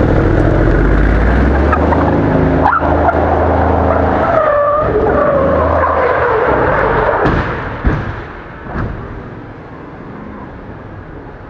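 Mercedes-AMG C63 S's twin-turbo V8 running hard as the sedan drifts, with a brief tyre squeal about halfway through. Then the engine drops away and two sharp knocks follow as the car goes off the road into a tree, leaving a quieter steady noise.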